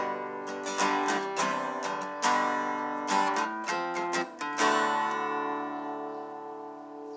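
Acoustic guitar music: strummed chords, the last one about two-thirds of the way through left to ring and fade.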